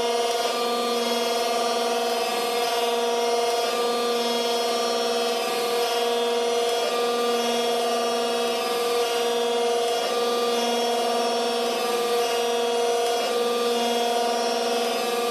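Kent surface grinder running with no work on the chuck: a steady, loud machine whine with several held tones. A lower hum swells and fades every couple of seconds.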